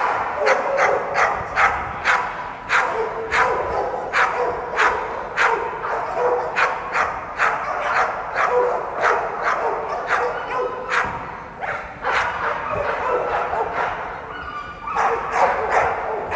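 American Pit Bull Terriers barking over and over, about two to three barks a second. The barking thins out for a few seconds near the end, then picks up again.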